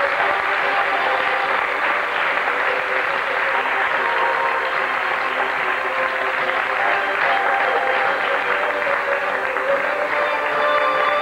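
Audience applauding steadily, with instrumental music faintly under the clapping that comes up louder again near the end.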